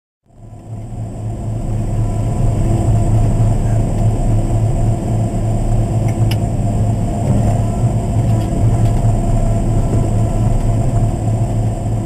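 Cat motor grader's diesel engine running steadily, heard from inside the cab as a low drone. It fades in over the first second or so, with a single sharp click about six seconds in.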